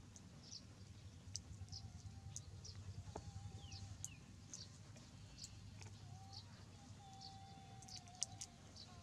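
Faint, short high chirps repeating about every half second over a steady low hum, with a few longer wavering whistle-like tones in the second half.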